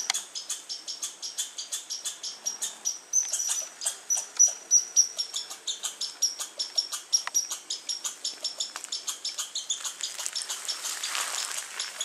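Squirrel calling: a rapid, even series of sharp high chirps, about five a second, kept up without a break. A short stretch of noisy rustle comes in near the end.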